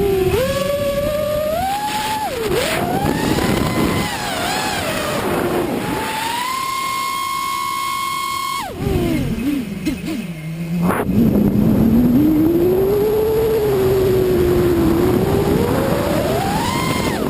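FPV racing quadcopter's four brushless motors (Cobra 1960 kv on a 4S battery) whining with the throttle: the pitch rises and falls, holds high for a couple of seconds, drops sharply about halfway through, then swells and falls again.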